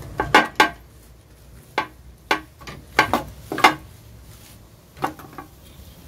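Metal clanks and rattles as a typewriter's sheet-metal body shell is worked loose and knocks against its frame: two sharp knocks near the start, a cluster of them in the middle, and a couple more near the end.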